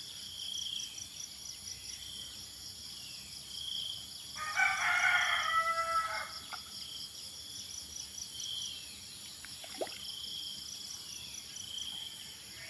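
A rooster crowing once, for about two seconds, starting about four and a half seconds in. Behind it runs a steady high-pitched insect chirring with a faint call that repeats about every second and a half.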